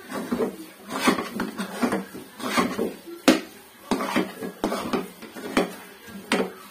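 Metal spoon scraping and knocking against a metal karahi while stirring thick semolina-and-jaggery halwa, in quick repeated strokes about two a second. The stirring is kept up nonstop so the thickening halwa does not stick to the bottom of the pan.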